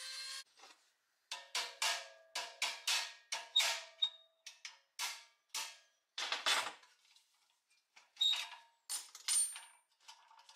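Steel rod clinking and ringing against the pressed-steel frame of a 1950s Doepke Adams toy road grader as it is worked through the frame's pivot holes. The metal clinks come irregularly, with a longer scrape about six and a half seconds in.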